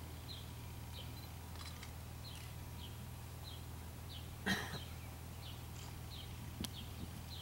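A small bird giving short, falling chirps, repeated roughly every half second, over a steady low hum. About four and a half seconds in there is one brief, louder noise, and a sharp click comes near the end.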